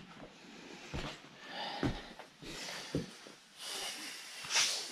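Close handling noises: rustling and a few light knocks, with sniffing and breathing.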